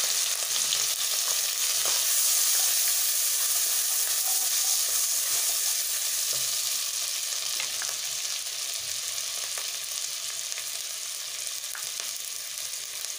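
Onion paste frying in hot oil in a nonstick kadai, a steady sizzle that slowly eases, stirred with a wooden spatula that scrapes and ticks against the pan.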